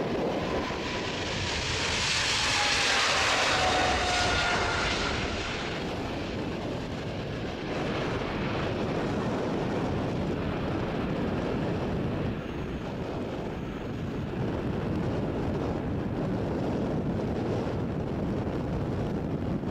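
Boeing 777-300ER's twin GE90-115B turbofans at take-off thrust as the airliner takes off and passes. A loud rush with a whine falling in pitch peaks a few seconds in, then settles to a steady rumble as the jet climbs away.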